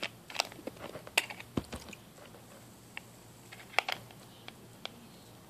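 Plastic housing of a water speaker clicking and crackling as it is handled and pried apart, in irregular sharp clicks, the loudest about a second in and again near four seconds in.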